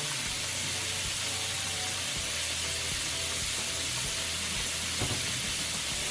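Chicken pieces frying in hot oil, a steady sizzle with one small knock about five seconds in.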